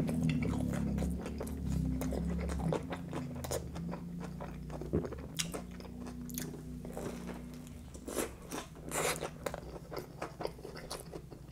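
Close-up mouth sounds of biting into and chewing a pizza slice topped with ranch and crispy fried onions: many short crunches from the crispy onions and crust, with a few louder crunches in the second half.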